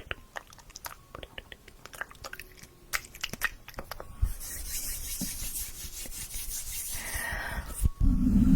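ASMR mouth sounds close to the microphone: quick wet clicks and smacks of the tongue and lips for about four seconds, then a steady soft hiss. Near the end a loud low rumble starts suddenly.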